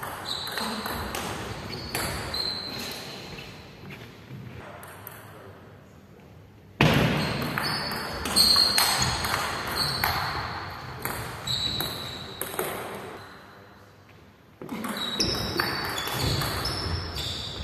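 Table tennis rally: the celluloid ball clicking off the paddles and bouncing on the table in quick exchanges, echoing in a large hall. There are three bursts of play, with the loudest hits starting suddenly about seven seconds in.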